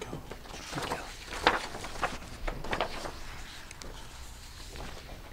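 Sheets of paper rustling and being handled as copies of a report are passed round and looked over, with a sharp rustle about a second and a half in and another burst near three seconds.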